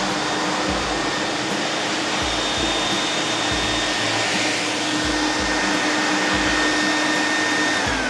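Krisbow Pro FPVCW30 1000-watt wet-and-dry vacuum cleaner running steadily, a rushing suction noise with a high whine, as its floor nozzle picks up metal powder. At the very end it is switched off and the whine starts to fall as the motor spins down.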